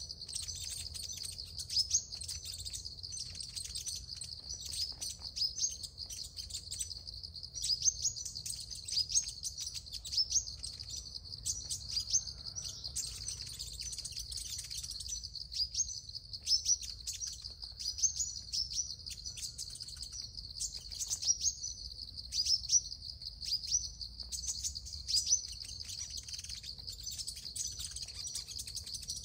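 Sunbirds chirping: a rapid, continuous run of short, high chirps and twitters, over a steady high-pitched hum.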